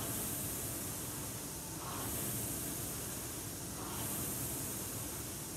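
Concept2 indoor rower's air flywheel whooshing as it is driven round, swelling with each stroke about once every two seconds, rowed at light pressure.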